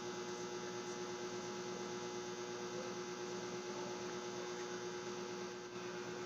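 Steady electrical hum: one strong unchanging drone with fainter tones above it, over a faint hiss.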